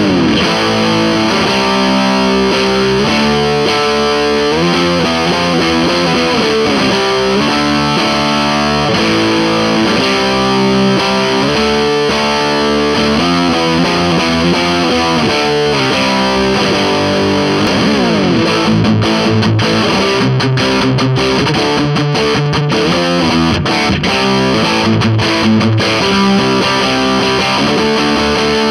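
Electric guitar played through an Orange Crush Pro 60 amplifier with the gain turned all the way up: continuous heavily distorted riffs and chords. The guitar is a vintage-style Fender with very low-output pickups.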